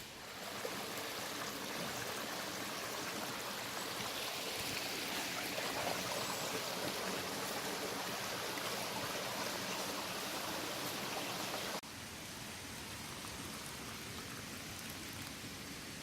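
Sausages frying in a pan on a camping stove, a steady sizzle; it drops a little in level abruptly about twelve seconds in.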